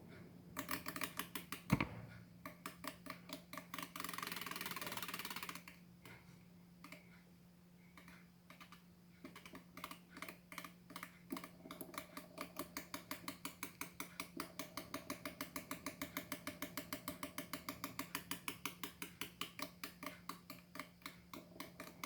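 Small battery-powered fan running: a steady hum under a rapid, even ticking of about five ticks a second, with a sharp click about two seconds in and a brief hiss about four seconds in.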